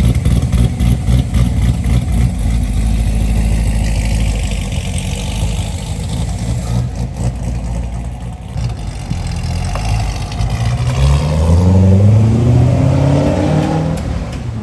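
Corvette V8 running loud with an uneven, loping beat, then engine speed climbing steadily over the last few seconds as it revs or pulls away.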